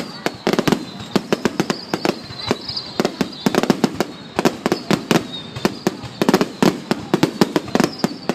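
Fireworks going off: rapid, irregular clusters of sharp bangs and pops, with a faint wavering high whistle behind them.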